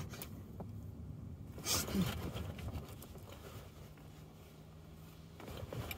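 Muffled low rumble of an automatic spray car wash heard from inside the car, with a brief rush of rustling noise about two seconds in.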